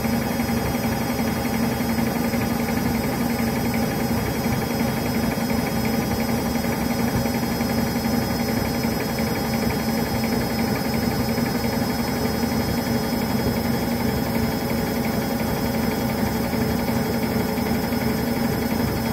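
Front-loading washing machine drum spinning steadily at about 650 rpm, the motor whining at a constant pitch. It is held at that speed by a suds lock, with too much foam in the drum.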